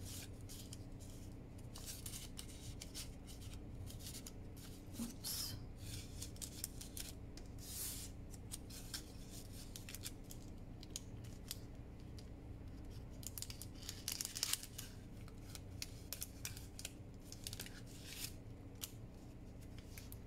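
Paper cards and a paper tag rustling and sliding against a small paper envelope as they are handled and tucked into its pockets, in short scattered rustles with a few longer slides.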